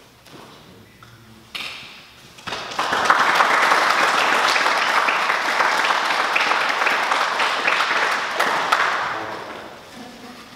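Audience clapping: applause starts about two and a half seconds in, holds for about six seconds, and dies away near the end.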